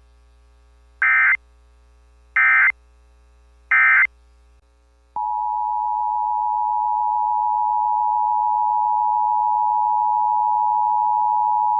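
Emergency Alert System signalling: three short, identical, warbling digital data bursts about 1.3 s apart, the SAME end-of-message code closing a severe thunderstorm warning. About a second later a loud, steady attention tone starts and holds, announcing the next alert.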